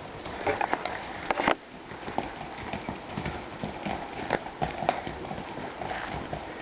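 Horses' hooves clopping, an uneven series of knocks.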